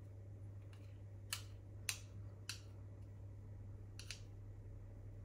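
Two metal spoons clicking lightly against each other while scraping muffin batter off into a paper cup: a handful of short clicks, two in quick succession near the end, over a low steady hum.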